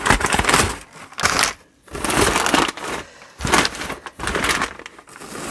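Crumpled kraft packing paper rustling and crinkling in irregular bursts as hands dig through it in a cardboard box.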